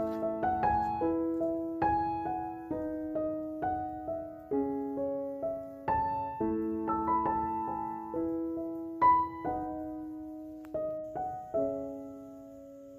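Background piano music: a melody of struck notes and chords, each left to ring and fade, ending on a long held chord that dies away.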